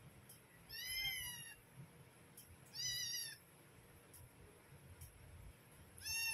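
Domestic cat meowing: three short, separate meows, each rising then falling in pitch, about a second in, about three seconds in and again near the end.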